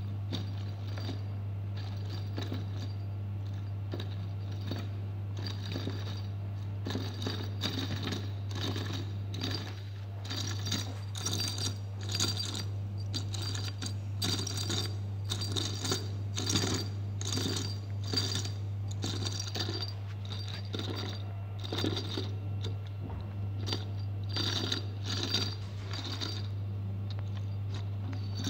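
Cycloidal reducer turned by hand at its input shaft: the lobed discs and steel ring pins make a steady run of light metallic clicks, one or two a second, over a steady low hum.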